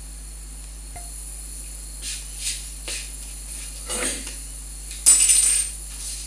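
Handling noises from a person moving about: a few soft rustles, then a louder rustle lasting about half a second a little after five seconds in. A steady hiss and hum sits underneath.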